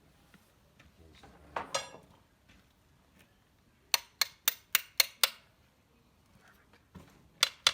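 Sharp metal-on-metal taps while working on tractor brake parts: a short clattering knock about a second and a half in, then six quick evenly spaced taps at about four a second, and a few more near the end.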